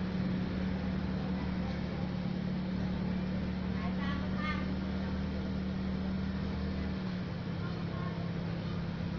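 A steady low mechanical hum whose deeper part cuts out about seven seconds in, when the pitch drops slightly. Faint voices in the background around four seconds in.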